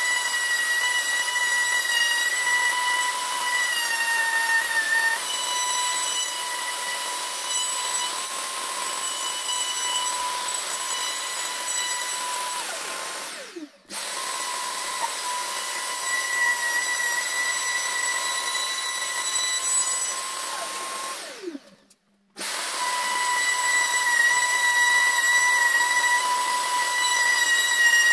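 Makita RTC0700C compact router running at full speed with a steady high whine, its bit cutting a recess into OSB board, with a shop vacuum drawing the dust through a hose at the router's base. Twice the sound dies away and breaks off for a moment before the router runs again.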